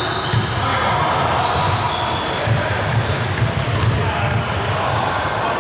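Basketball game on a court: the ball bouncing in a run of dribbles, with many short, high sneaker squeaks and players' voices.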